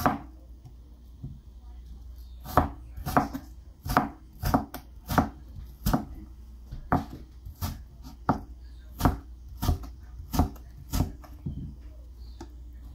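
A cleaver-style kitchen knife slicing watermelon rind on a plastic cutting board: the blade knocks on the board, once at the start and then, after a pause of about two seconds, about every two-thirds of a second, stopping a couple of seconds before the end.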